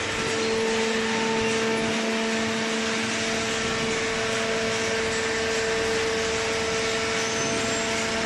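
Hydraulic pump motor of a vertical shredded-paper baling press running, a steady hum with a constant pitch and no change throughout.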